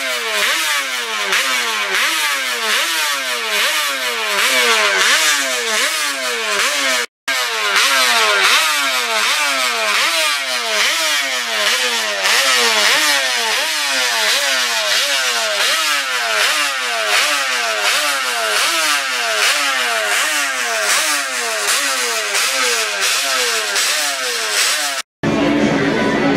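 Classic racing motorcycle engine being blipped over and over, its revs rising and dropping about one and a half times a second without a break. Near the end it gives way to a steadier, lower running sound.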